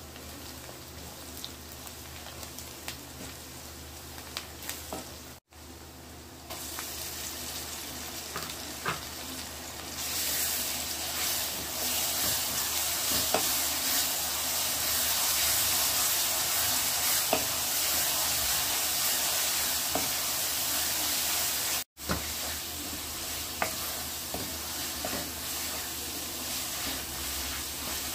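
Onions and ground coconut masala frying in oil in a metal kadai, stirred with a wooden spatula that scrapes and taps against the pan. The sizzle grows louder about ten seconds in, once the masala paste is in the pan, and drops back after a brief cut in the sound later on.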